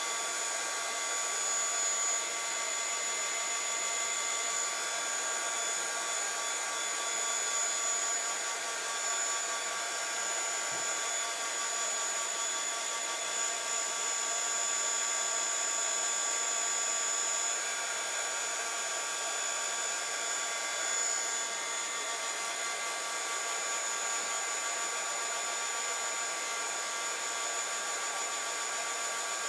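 Craft heat gun running steadily, its fan blowing with a high, even motor whine as it dries a wet ink-sprayed paper tag.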